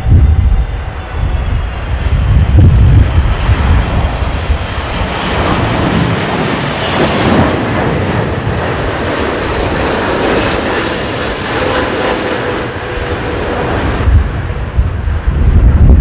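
Boeing 777-200ER airliner's jet engines on landing approach, a steady loud rush that swells as the aircraft passes close by in the middle and then draws away toward the runway. Gusts of strong crosswind buffet the microphone with a low rumble at the start and again near the end.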